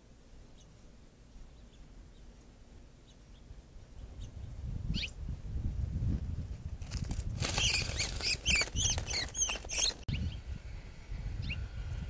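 Small bird's shrill distress calls, a rapid string of sharp downward chirps starting about seven seconds in and cutting off abruptly about three seconds later, as a greater roadrunner pounces on it. A low rumble runs beneath.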